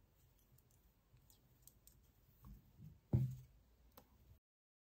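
Metal knitting needles clicking faintly as stitches are worked, with a louder soft knock about three seconds in. The sound cuts out completely near the end.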